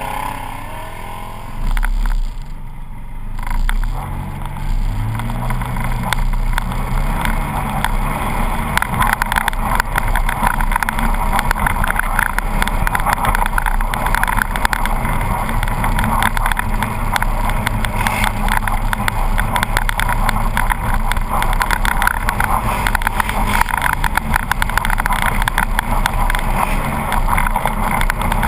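Polaris RZR 800 side-by-side's twin-cylinder engine, heard from an onboard camera, revving up as it pulls away in the first few seconds. It then runs steadily at speed with a dense rattle from the rough track.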